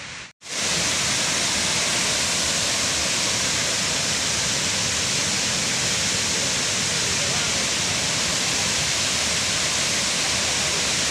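Waterfall rushing: a steady, even noise of falling water that sets in after a brief gap about half a second in.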